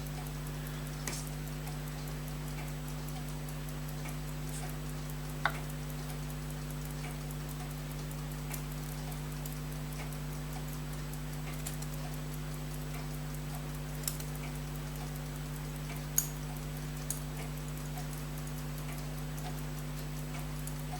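Small metal watch parts and tweezers clicking now and then on the bench during reassembly of a pocket watch movement, a few scattered irregular ticks over a steady electrical hum.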